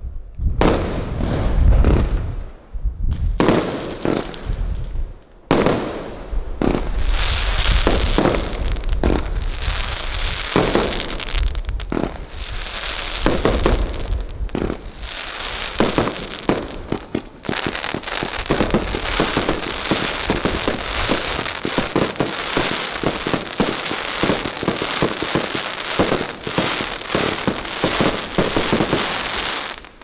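China Red 'Bulldozer' 115-shot fireworks cake firing. For the first five or six seconds separate shots launch and burst about a second apart, then the bangs come faster and overlap, and for the last twelve seconds or so they run together into a continuous barrage, the finale, which cuts off suddenly.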